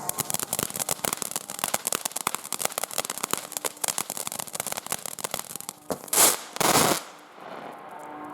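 WECO Yang firework fountain crackling rapidly, a dense run of sharp pops, then two loud hissing bursts of spray about six and seven seconds in. Background music comes back near the end.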